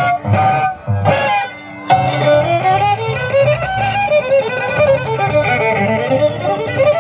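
Andean carnival folk music, with a violin carrying a sliding melody over a steady pulsing bass. It breaks off briefly twice in the first two seconds, then plays on.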